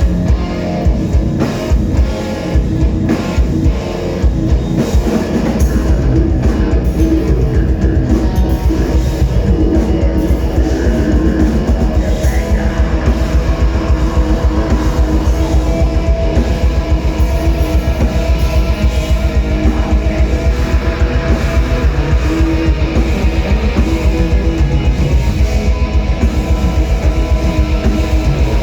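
Heavy metal band playing live: distorted electric guitars and a drum kit. About five seconds in, the drums settle into a fast, steady low pulse under the guitars.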